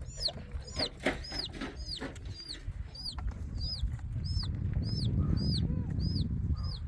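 A bird repeats a high peep that curves downward, about twice a second, over a low rumble that swells from about three seconds in until near the end.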